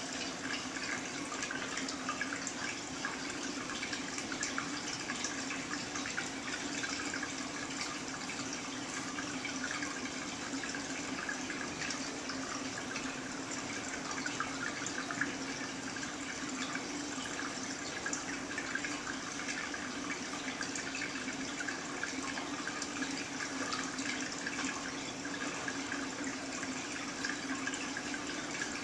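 Steady trickling and splashing of water circulating in a large fish tank, unbroken throughout.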